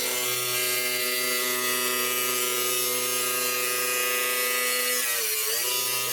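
Electric power tool cutting out rusty sheet steel from a car door, running at a steady high speed. Its pitch dips briefly about five seconds in, as the cut loads it, then recovers.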